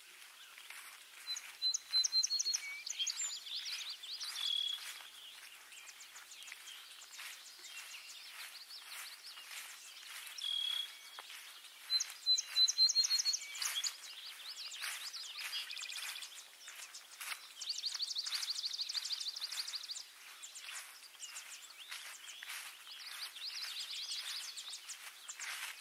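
Songbirds singing in the open. A bright song phrase comes twice, about ten seconds apart. A long, rapid trill follows, and a shorter trill comes near the end.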